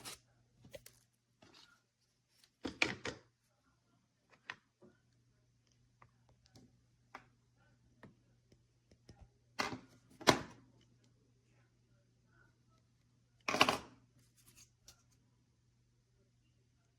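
Scattered knocks and clicks of objects being handled, with three louder clatters about three seconds in, ten seconds in and near fourteen seconds, over a faint steady hum.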